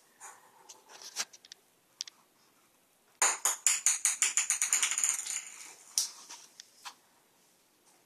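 Small plastic ball bouncing on a hard tile floor: a run of quick bounces, each one coming sooner and fainter than the last until it settles into a roll. A few light clicks before and one after.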